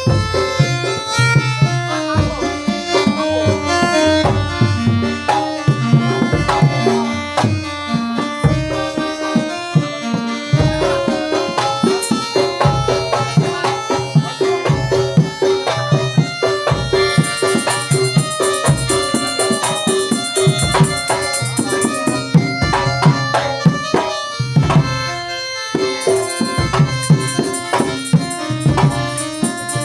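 Traditional Indonesian music: hand drums keep a steady beat under a melody. A high, fast rattling shimmer joins about halfway through, drops out, and returns near the end.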